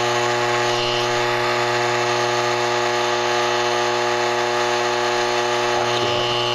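Steady electrical hum with a buzzing edge, unchanging in pitch and level.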